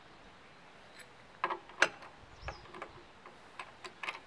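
Scattered clicks and knocks, the loudest about two seconds in, from a freshly painted steel stop bar on a homemade angle-grinder cut-off stand being worked loose where the paint has stuck it.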